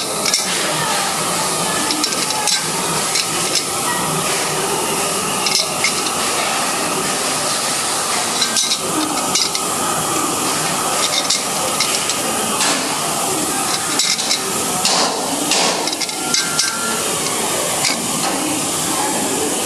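Irregular metal clinks and knocks as a long steel wrench bar works the blade bolts inside the steel cutting chamber of a Pulian A400 crusher during blade replacement, over a steady hiss.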